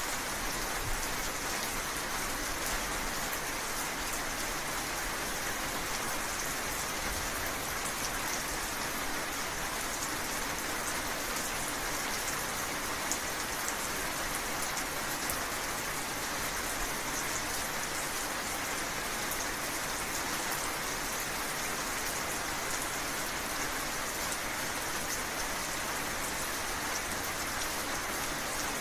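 Steady rain falling, with a constant hiss and fine patter of drops hitting surfaces; no thunder.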